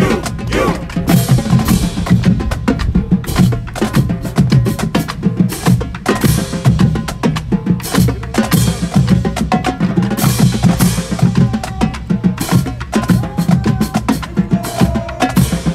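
A marching band's drumline playing a street cadence on snare and bass drums in a brisk, steady beat, with a few held brass notes coming in near the end.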